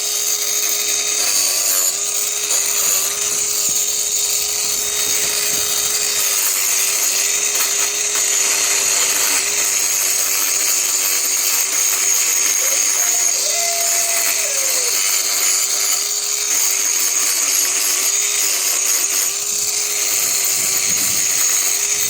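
Cordless mini angle grinder with a Hoof Boss abrasive disc running steadily as it grinds down an overgrown miniature horse hoof, its motor pitch dipping slightly now and then as the disc bears on the hoof.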